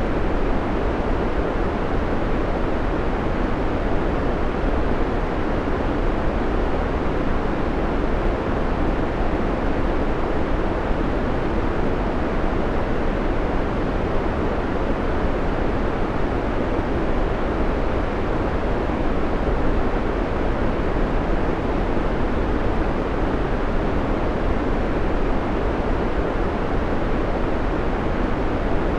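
Steady synthetic white noise: an even, unbroken hiss, heavier in the low end than the highs.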